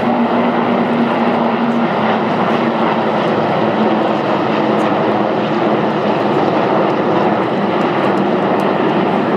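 A formation of Super Puma transport helicopters flying past, a loud steady drone of turbines and rotors with a hum that drops a little in pitch about two seconds in.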